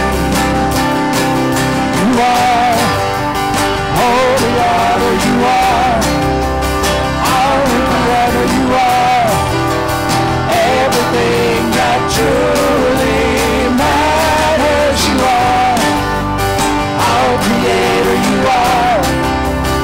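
A live worship band playing: strummed acoustic guitars, electric guitar and keyboard, with men's voices singing a song of praise.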